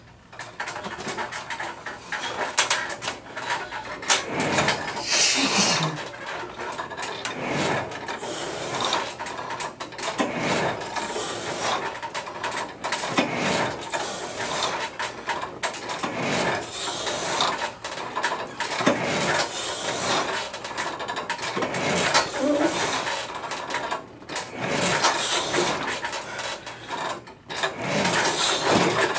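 Total Gym XLS glideboard, loaded with 300 lb of plates on its weight bar, rolling up and down its rails on cables and pulleys through a set of repetitions. It makes a mechanical whirring and clatter, about ten strokes at one every two to three seconds.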